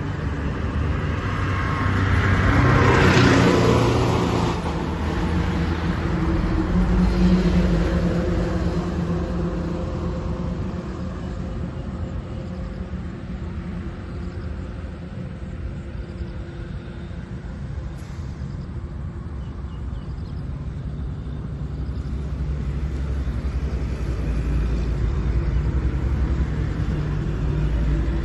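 Road traffic going past close by: a vehicle swells up and passes about three seconds in, another around seven seconds, over a steady low rumble of traffic.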